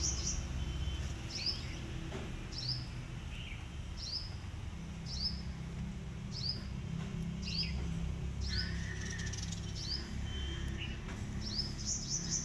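A small bird chirping a short, high single note over and over, about once every three quarters of a second, with a quicker run of chirps near the end. A steady low rumble lies underneath.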